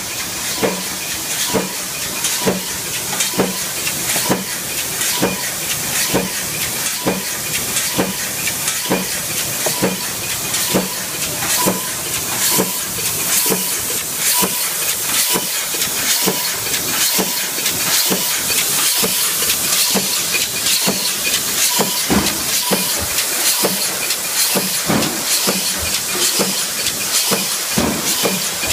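Mechanical punch press running in production, stamping slinger parts from coil strip stock: a regular, unbroken rhythm of sharp stamping strokes over a constant hiss.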